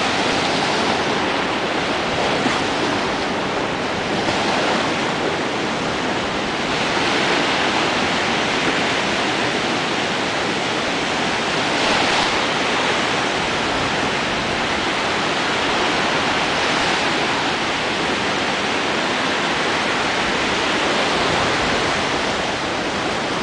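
Ocean surf breaking on a shore: a steady wash of waves that swells and eases every few seconds.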